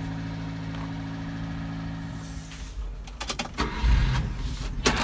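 Subaru Sambar truck's small four-cylinder engine idling steadily, then stopping about halfway through when the ignition is switched off. Irregular knocks and low thumps follow near the end.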